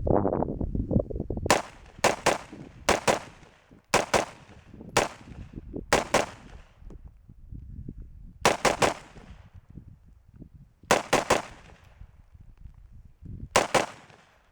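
AR-15 rifle with a 16-inch barrel and a VG6 Gamma 556 muzzle brake, firing .223 in semi-auto: about twenty sharp shots in quick strings of two to four, with short pauses between strings. A low rumble comes before the first shot.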